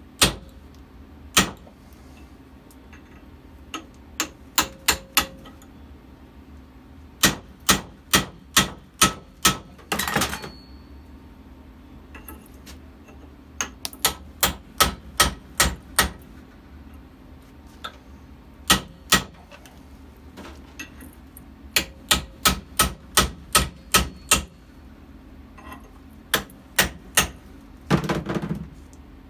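Hammer striking a chisel against the steel inner race of an old wheel bearing on a rear hub held in a vise, to crack it off. Sharp metallic blows come in runs of several, about two a second, and twice there is a brief rushing burst. The race has not cracked yet.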